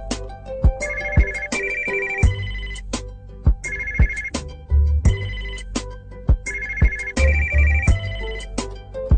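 Phone ringtone: a looping electronic tune with a steady beat, deep bass notes and bright high tones, its short phrase repeating about every three seconds.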